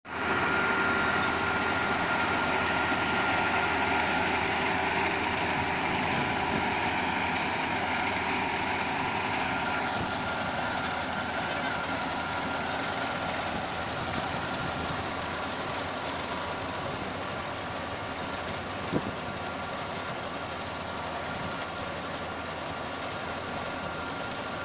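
Half-feed combine harvester running steadily, a mix of engine and threshing-machinery noise with a few steady whining tones. It eases off slightly about ten seconds in, and there is a single sharp knock near the end.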